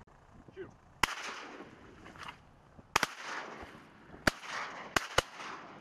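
Shotguns firing at ducks: five sharp shots, the first about a second in, then one at about three seconds, one at about four, and a quick pair near the end, each with a short echo.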